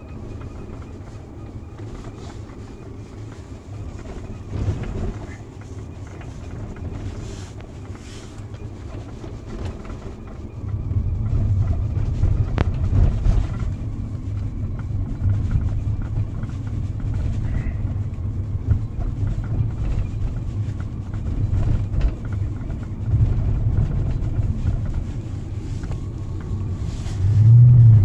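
BMW E60 545i's 4.4-litre V8 running with a steady low rumble that grows louder about ten seconds in, with a faint, thin, steady high-pitched squeak above it.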